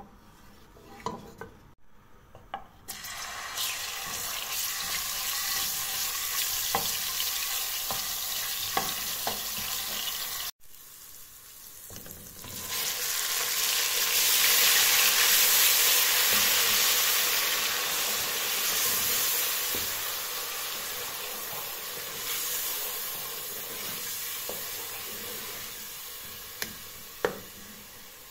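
Hot oil sizzling in an aluminium pressure cooker while a wooden spoon stirs and taps against the pot. About twelve seconds in, a wet paste goes into the oil and the sizzling turns much louder, then slowly dies down as it is stirred.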